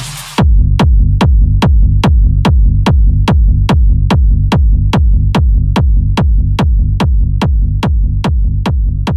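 Electronic dance music: a build-up ends and a heavy, steady kick-drum beat with a deep bass line drops in about half a second in, at about two and a half beats a second.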